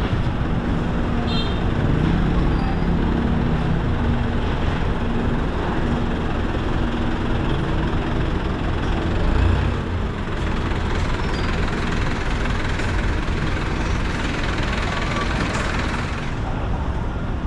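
Street traffic noise in a narrow, crowded city street. Vehicle engines are running close by, with a steady hum strongest in the first several seconds.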